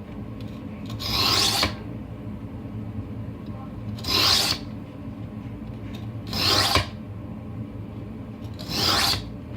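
Steel knife blade drawn along a wet whetstone four times, each stroke a short gritty scrape about two and a half seconds apart, as the edge of a deboning knife is honed.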